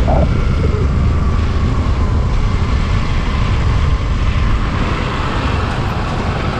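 Suzuki Burgman Street EX 125 scooter on the move: a steady engine and road noise under heavy, fluttering wind rumble on the microphone.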